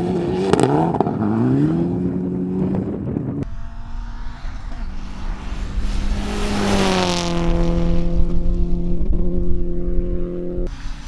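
Rally car engine accelerating hard on a gravel stage, its pitch climbing. Then a second car approaches at speed and passes close, with a rush of tyre and gravel noise and its engine note dropping as it goes by, about seven seconds in.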